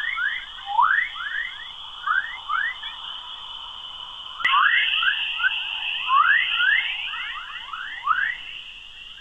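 Earth's chorus plasma waves turned into audio: many quick rising chirps, several a second, over a steady high hiss. There is a click about four and a half seconds in, after which the hiss is louder.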